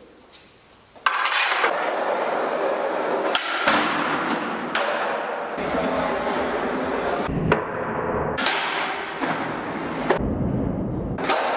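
Skateboard wheels rolling on a smooth concrete floor, with sharp clacks and thuds of the board popping and landing; the loudest clack comes about seven and a half seconds in.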